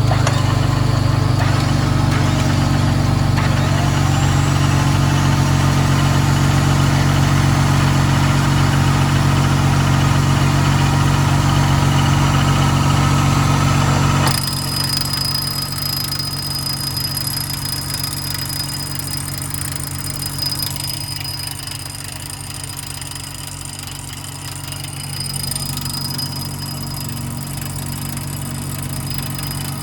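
Off-road 4x4 engine running steadily at an even pitch. About halfway through, the sound drops suddenly to a quieter level, with a thin high whine above the engine.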